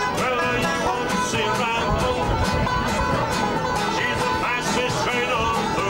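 Folk band playing a tune, with banjo and acoustic guitar picking a steady rhythm.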